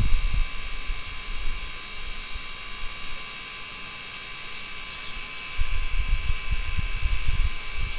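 A steady, high-pitched electrical hum made of several tones. A low rumble comes in about five and a half seconds in and lasts roughly two seconds.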